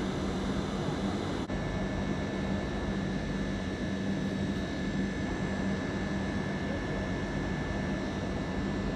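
Steady low hum and rumble of an electric railway line with a train approaching in the distance. A faint high whine sets in after a break about a second and a half in.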